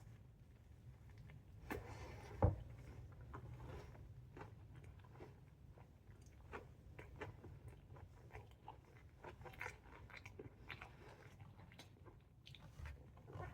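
Biting into a Chicago-style hot dog in a steamed poppy seed bun, with a sharp crunch about two and a half seconds in, followed by chewing heard as many small irregular clicks.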